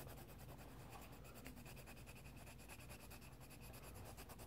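Faint scratching of a coloured pencil on paper, over a low steady hum.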